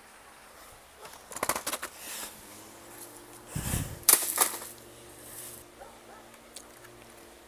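Asus laptop dropped onto gravelly ground, hitting with a low thud and sharp clattering cracks about four seconds in. A shorter run of rattling clicks and knocks comes earlier.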